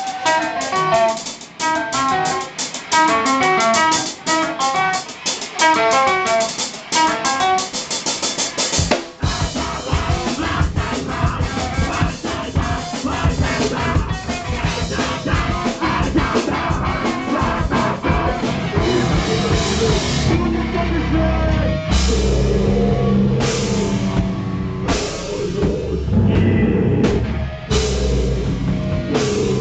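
Live rock band. A guitar riff of picked notes plays over light, fast ticking at first. About nine seconds in, the full band crashes in with drums and bass and plays on loud.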